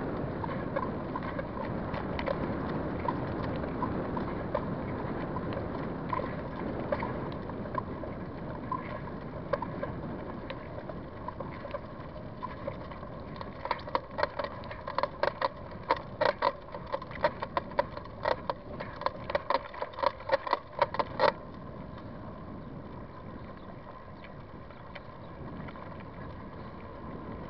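Bicycle on the move: steady rushing wind and rolling noise, then, for about eight seconds past the middle, a run of quick metallic clicks from the rear hub's freewheel while coasting, which stops abruptly.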